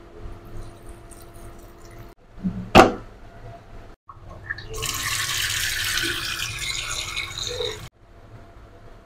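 A sharp knock just under three seconds in, then about three seconds of running water splashing that cuts off abruptly.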